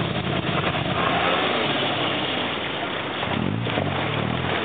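Small off-road 4x4's engine running at low revs under load as it crawls over a steep rocky trail, its pitch rising and falling a little in the second half.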